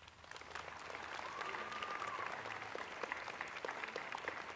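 Audience applauding, the clapping building up over the first second and then holding steady. A brief tone rises and falls over it about a second and a half in.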